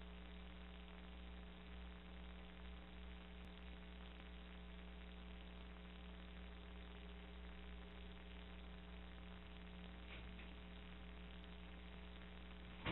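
Steady electrical hum with several fixed tones over a low hiss, the room tone of an empty room as picked up by the recording system; a short click right at the end.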